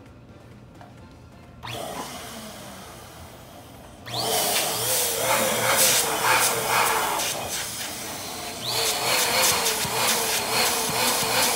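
Twin-nozzle electric balloon pump switching on about four seconds in, its motor running with a wavering whine as it blows air into a large latex balloon; it eases briefly a little before nine seconds, then runs at full level again.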